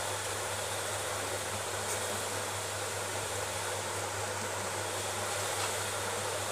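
Steady rushing background noise with a constant low hum, and a few faint light ticks over it.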